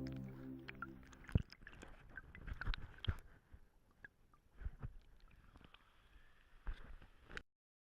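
Background music fades out in the first second, leaving faint irregular knocks and thuds over a low hiss. The sound cuts off suddenly near the end.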